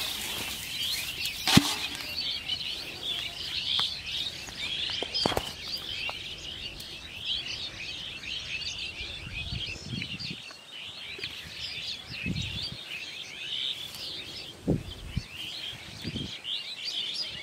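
Dense chorus of small birds chirping continuously in quick, overlapping high notes. A sharp knock comes about one and a half seconds in, and a few soft thumps follow in the second half.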